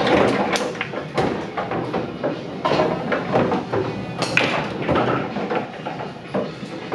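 Busy bar-room din during a pool game, with a string of sharp clicks and knocks throughout.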